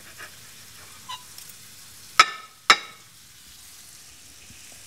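Two sharp clinks of metal cutlery against a ceramic plate, about half a second apart, as steak is cut on it. Under them runs a steady frying sizzle.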